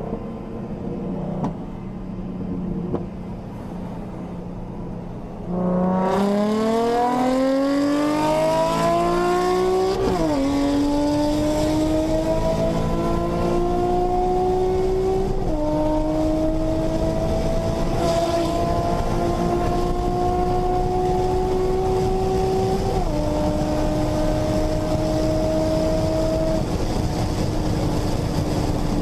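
Tuned 2007 Nissan 350Z's 3.5-litre VQ35HR V6, with cams, headers, intake and exhaust, heard from inside the cabin: a steady drone while cruising, then about six seconds in it gets louder and the engine note climbs hard under full throttle. The pitch drops sharply at an upshift about ten seconds in, then climbs slowly again in the higher gear, with another drop at a later upshift.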